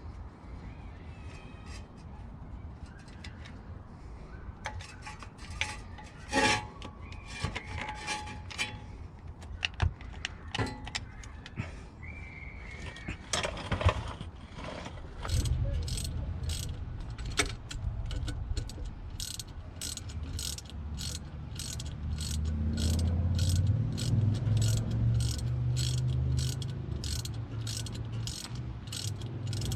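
Hand tools clinking and knocking against metal, then a ratchet wrench clicking steadily at about two clicks a second as a bolt is worked.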